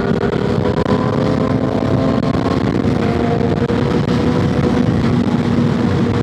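Motorcycle engine running under way, its pitch climbing slowly, with a heavy rush of wind noise over it.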